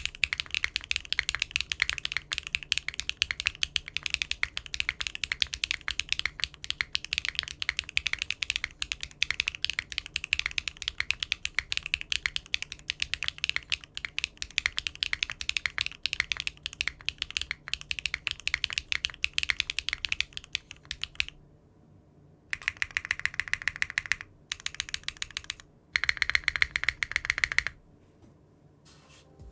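Mechanical keyboard fitted with Cherry-profile keycaps being typed on in a sound test: steady fast typing for about twenty seconds, then a pause and three short bursts of rapid keystrokes near the end.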